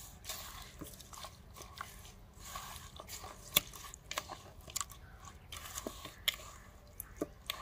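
A bare hand squishing and turning raw chicken drumsticks in a wet spice marinade in a plastic bowl, making irregular wet squelches and small clicks, with one sharper click about halfway through.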